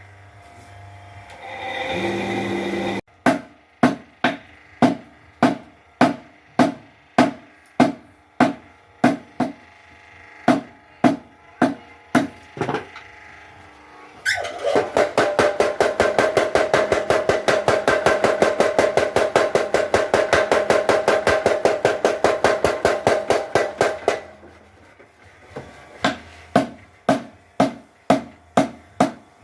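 Blacksmith's power hammer striking metal: single blows about two a second, then about ten seconds of fast continuous hammering with a ringing metallic tone, then slower blows again. A short rising whine comes just before the first run of blows.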